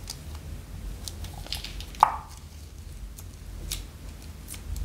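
Small clear plastic bag crinkling and crackling as it is handled and opened, with one sharp snap about two seconds in that rings briefly; sequin confetti is then shaken out of it.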